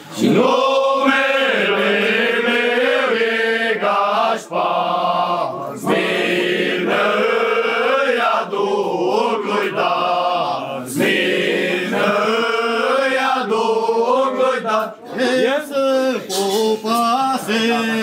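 A group of male carolers singing a Romanian Christmas carol (colindă) together, without a break.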